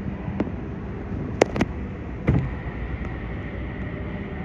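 Station platform ambience: a steady hum with a faint high tone, broken by a few sharp clicks and knocks in the first two and a half seconds.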